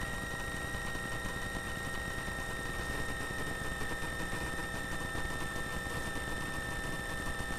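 Cessna 421C's twin engines running at low power during the landing rollout and taxi, heard through the cockpit intercom feed as a steady drone with a high whine that sinks very slightly in pitch.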